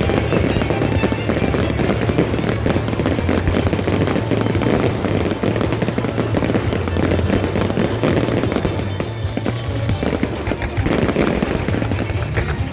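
Fireworks crackling and popping in rapid, dense volleys, with music playing under them.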